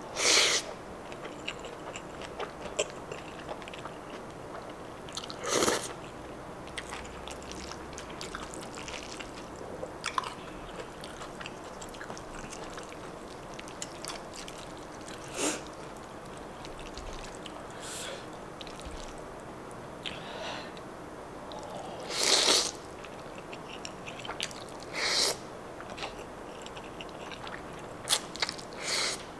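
Close-miked eating of angel hair pasta: loud slurps of noodle strands about six times, with quieter chewing and wet mouth clicks in between.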